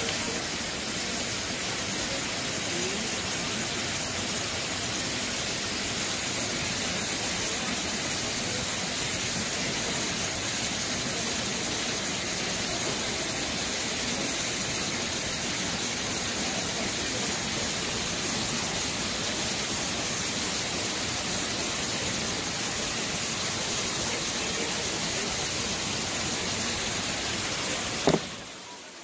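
Steady rushing of an artificial rock waterfall pouring into a pool. It drops out abruptly about a second before the end.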